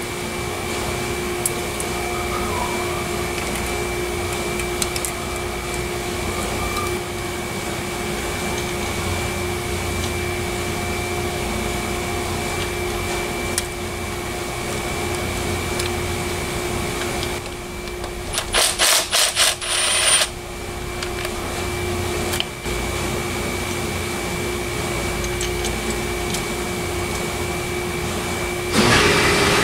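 Steady workshop machine hum, like a fan or air conditioner, with hand work on the engine's timing-chain area beneath it. About two-thirds of the way through comes a short run of sharp metallic clicks.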